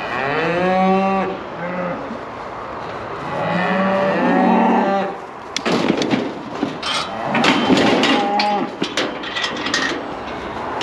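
A calf bawling while restrained in a metal cattle crush: two long bawls in the first half, a shorter one later. From about halfway through, the steel crush knocks and rattles as the calf shifts in it.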